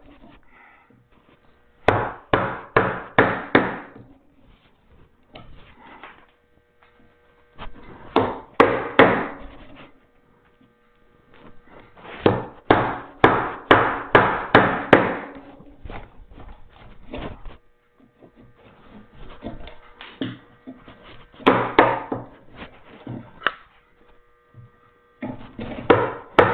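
Mallet striking a chisel, chopping a mortise by hand in wood: quick runs of several blows with short pauses between them, over a faint steady hum.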